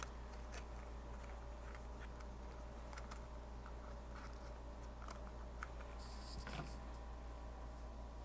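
Faint, scattered clicks and taps of hands handling small cosmetic packaging, with a brief rustle about six seconds in, over a steady low hum.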